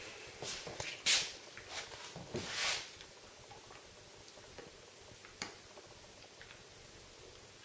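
A dog chewing a treat in its fabric bed, with faint clicks of its chewing. Several loud rustles come in the first three seconds, the loudest about a second in, then only the faint clicks.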